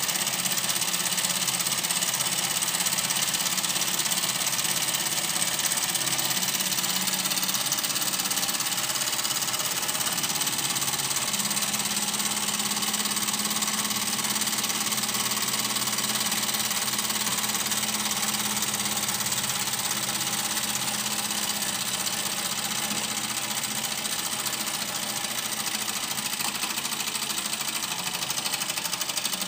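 Small 1954 Fleischmann 125/2 toy steam engine running under steam, a steady mechanical clatter with hissing.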